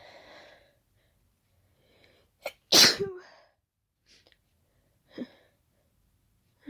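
A woman's single loud, wet allergic sneeze about three seconds in, brought on by smelling daisies; it is preceded by a faint intake of breath and a short sharp catch, and followed by a couple of small quiet breaths.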